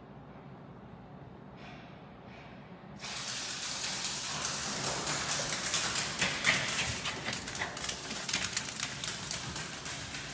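A small dog's claws clicking rapidly on a hard plank floor as it runs, a dense patter of sharp clicks over a hiss that starts suddenly about three seconds in, after a quiet start.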